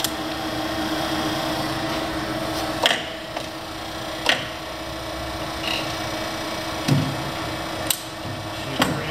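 Sharp metallic clicks and clunks, about five of them, as a Warner & Swasey No. 3 turret lathe's square tool post and turret ram pilot wheel are worked by hand. A steady machine hum fades out about three seconds in.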